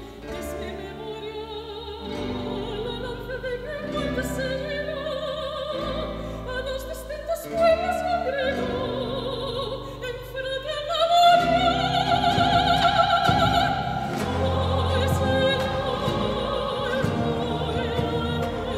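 Female soloist singing with vibrato, in a classical operatic style, over choir and instrumental accompaniment. Her line climbs higher and the music grows louder about eleven seconds in.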